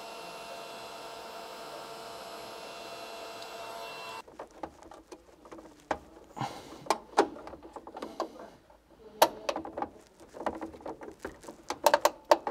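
Cordless DeWalt heat gun running with a steady whine while shrinking green-and-yellow earth sleeving; it stops suddenly about four seconds in. Irregular sharp clicks and rustling follow as cables are handled and dressed in the distribution board.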